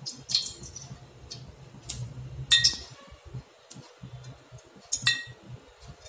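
Steel spoon clinking against the inside of a glass jar of sunflower oil while oil is spooned out: a few sharp, ringing clinks, the loudest about two and a half seconds in.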